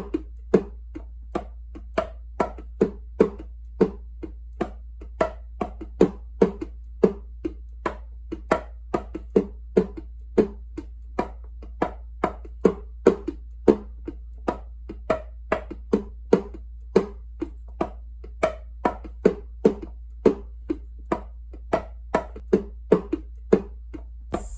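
Steady, even wooden-sounding knocks, about two or three a second, with a slight change in pitch from knock to knock, over a low steady hum. It is a homemade tapping sound effect made with everyday household objects.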